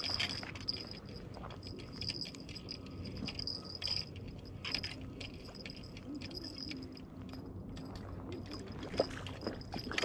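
Spinning reel being cranked to bring in a hooked trout, its gears giving a thin whine in stretches of a second or so, with handling rustle and clicks. The fish splashes at the surface near the end.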